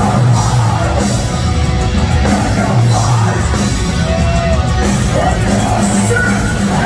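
Heavy metal band playing live, loud and dense, with heavy low guitar and drums throughout.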